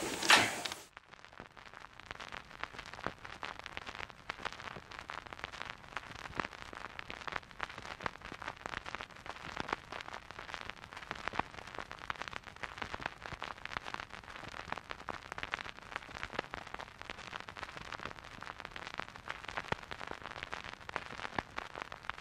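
Steady old-film crackle: dense, irregular clicks and pops, starting about a second in after a short louder sound at the very start.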